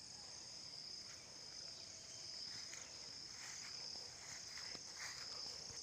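Faint steady chorus of insects, a continuous high-pitched trill, with a couple of soft knocks.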